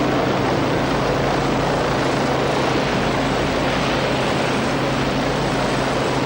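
Helicopter in flight: a steady engine and rotor noise with a faint high whine, which cuts off abruptly near the end.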